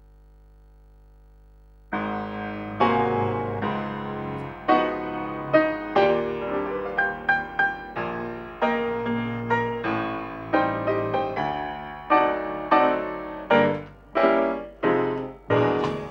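Piano music, chords and a melody of struck notes, begins about two seconds in after a faint steady hum.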